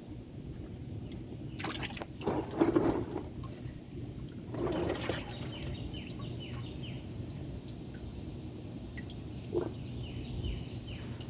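Engine oil draining out of a Porsche Cayman into a catch pan, pouring and trickling, with two louder splashing gushes in the first half and a thump near the end.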